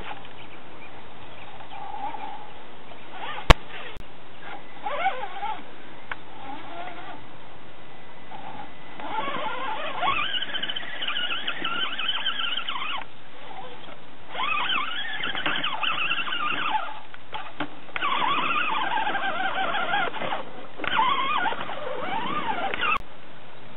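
Electric drive motor and gearbox of an Axial AX10 RC rock crawler whining in four throttle bursts, the pitch rising and falling as it crawls over rocks. There is a single sharp click about three and a half seconds in.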